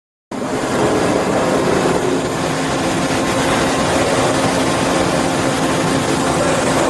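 SNK RB-4VS double-column machining center running: a steady mechanical din with a constant hum under an even hiss.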